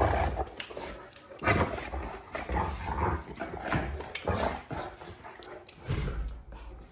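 Great Danes growling and grumbling at each other in a string of short, uneven outbursts.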